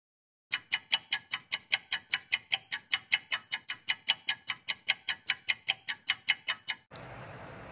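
Ticking clock sound effect laid over the video, an even, rapid ticking of about five ticks a second that starts about half a second in and cuts off abruptly near the end, marking thinking time.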